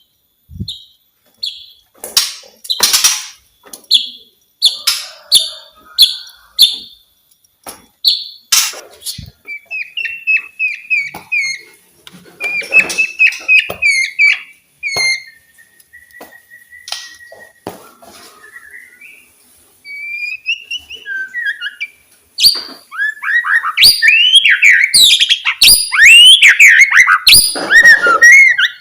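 White-rumped shama singing: short sharp notes repeated about once a second at first, then varied clear whistled phrases and fast trills, ending in a dense run of rapid sweeping phrases in the last few seconds.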